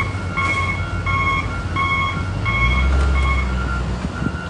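Backup alarm of a working machine beeping in a steady repeating pattern, alternating between two pitches, over a low engine rumble that swells about two and a half seconds in.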